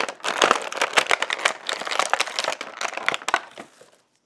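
Clear plastic blister packaging crinkling and crackling as an action figure is pulled free of its moulded tray. It dies away about three and a half seconds in.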